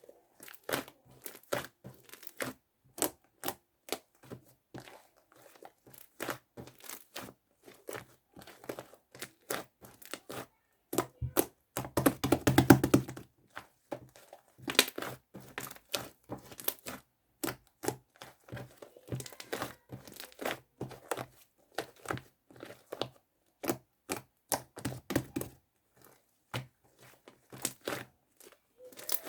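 Sticky, fluffy slime being squeezed, stretched and folded by hand, giving a stream of irregular clicks and pops, with a louder, denser run of crackling about twelve seconds in.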